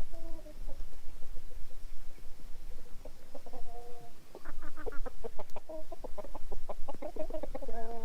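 Okazaki Ohan chickens clucking: a few scattered calls, then a quick run of clucks from about halfway through.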